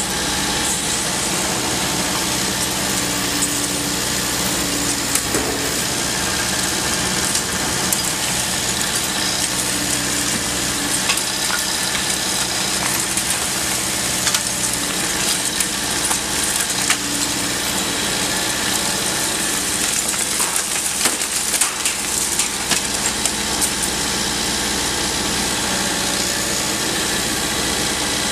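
Liebherr R 950 Demolition long-reach excavator's diesel engine running steadily while its tool works the upper floors, with irregular cracking and clatter of breaking masonry and falling debris, busiest in the middle of the stretch.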